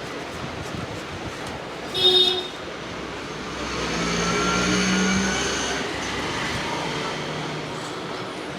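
Roadside traffic noise: a short, loud, high-pitched beep about two seconds in, then a vehicle passing, swelling and fading over about three seconds.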